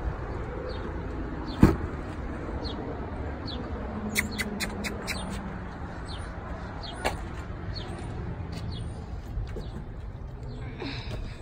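Rear door of a stretched Denali limousine unlatching with one sharp click about a second and a half in, then swinging open, over a steady outdoor rumble with scattered bird chirps.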